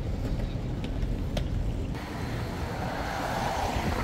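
Road traffic on a busy city street: a steady low rumble, with the noise of a nearby car swelling from about two seconds in and loudest near the end.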